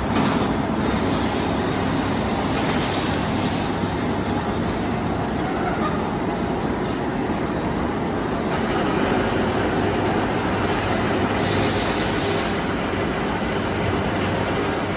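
Loud, steady rumble of heavy industrial machinery, with two bursts of hiss: one about a second in that lasts a few seconds, and a shorter one near the end.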